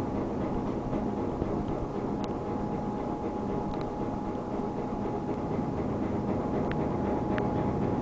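Steady machinery drone from bunker pumping equipment delivering fuel through a hose up to a ship, with a constant high whine running through it and a few faint clicks.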